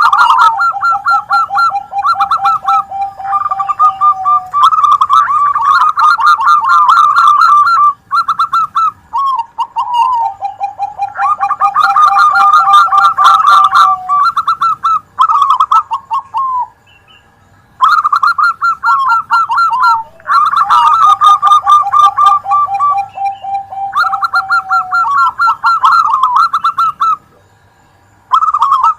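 Several zebra doves (perkutut) cooing at once in rapid, repeated staccato phrases, one voice higher and one lower, overlapping. The song breaks off briefly twice, once about halfway through and once near the end.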